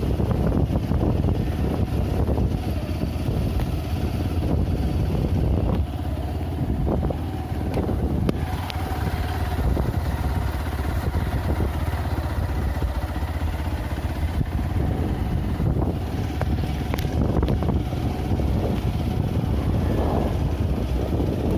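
A motorcycle engine running as the bike rides along a grassy track, its note a little clearer near the middle. Wind rumbles on the microphone throughout.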